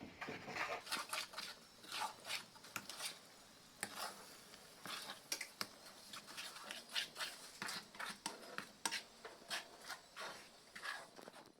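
A utensil scraping and clicking against a cooking pan as semiya kesari is stirred, in quiet, irregular strokes.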